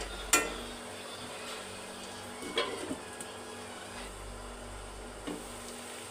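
Bhindi (okra) sizzling as it fries in a pan, with a spatula knocking against the pan a few times as it is stirred.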